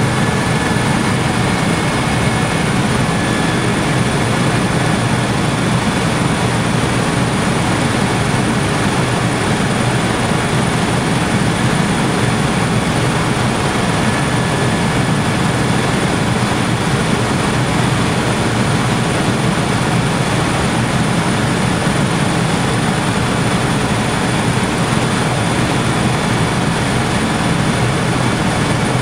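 Steady drone of an aircraft in flight, heard from inside the cabin: engine and airflow noise holding at a constant loud level throughout.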